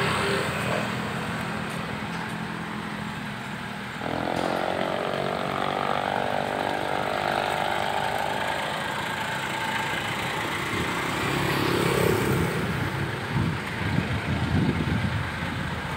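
Street traffic: a motor vehicle's engine hum comes in sharply about four seconds in and fades over several seconds, over a steady traffic background. Low rumbles come and go near the end.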